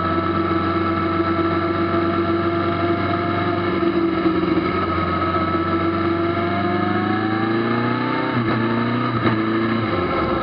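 Kawasaki ZZR1400's inline-four engine running under way, holding steady revs, then climbing from about six seconds in. The revs dip sharply twice near the end, like quick gear changes, then settle again.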